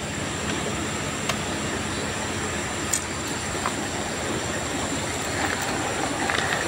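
Steady rumbling noise of a vehicle on the move, with a few sharp clicks.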